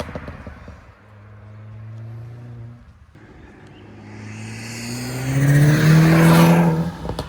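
Audi S3 8P's turbocharged 2.0 TFSI four-cylinder, with aftermarket downpipe and a pops-and-bangs tune, running at a lower engine note, then accelerating with the pitch rising to a loud peak about six seconds in. It lifts off near the end, where the first exhaust pops and crackles begin.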